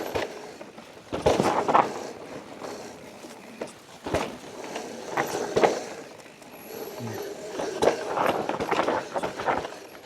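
Mountain bike clattering over rough trail, with irregular knocks and rattles that come in louder bunches every few seconds.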